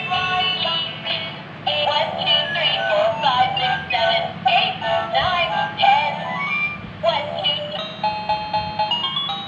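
Bright electronic tune with a synthesized singing voice, a quick run of melody notes over a steady low hum.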